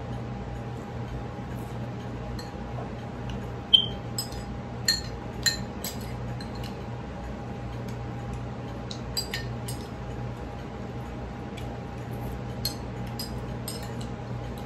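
Spoon clinking against a ceramic soup bowl: scattered light clinks, the loudest about four seconds in, over a steady low hum.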